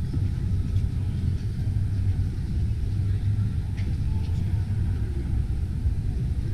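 Steady low rumble of a busy exhibition hall, with indistinct crowd voices faintly mixed in.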